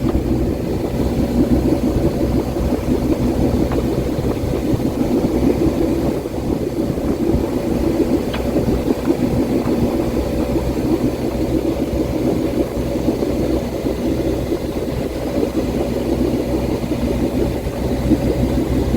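The sailboat's freshly rebuilt engine running at a steady speed while the boat motors in a calm.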